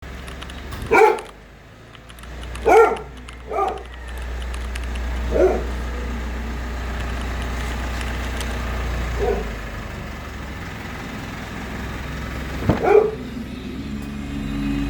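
A dog barking, about six single barks spaced irregularly, over a low steady rumble.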